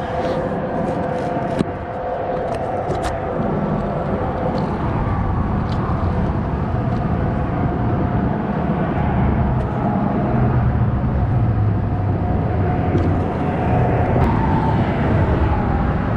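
Steady road-traffic noise, a low rumble running on with a faint steady hum above it. A few faint clicks in the first three seconds.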